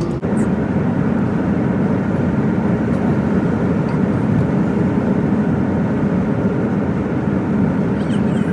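Steady rumble of a vehicle on the move, road and engine noise with no distinct events.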